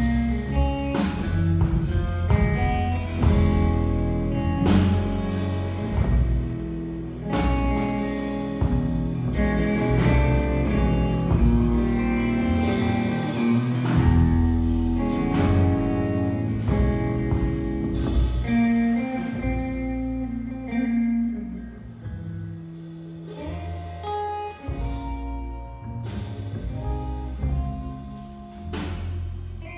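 Small jazz trio playing live: a Telecaster-style electric guitar leads a melody over bass and a drum kit.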